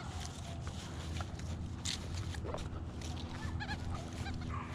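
Metal detector sweeping over the ground with a steady low hum and scattered clicks and scuffs of handling. A short warbling run of tones comes about three and a half seconds in.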